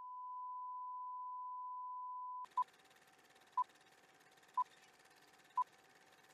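Steady test tone under colour bars, cutting off suddenly about two and a half seconds in. Then a film-leader countdown: short beeps once a second, four of them, over a faint hiss and a faint steady lower tone.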